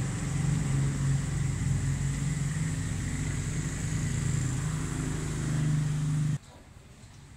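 A motor vehicle's engine running steadily with a low hum, cutting off abruptly about six seconds in and leaving only faint background sound.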